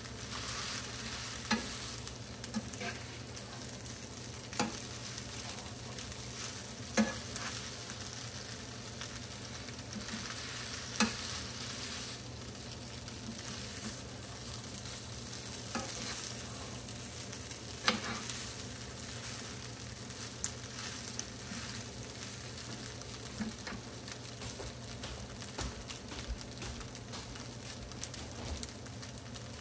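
Fried rice sizzling in a frying pan while being stirred and turned with a wooden spatula and a metal spoon, with sharp clicks of the utensils against the pan every few seconds.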